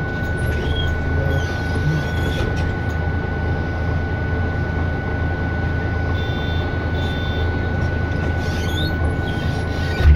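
Cabin sound of a MAN Lion's City city bus: its MAN D2066 diesel running steadily as a low rumble, with a thin steady high whine over it. A short loud thump near the end.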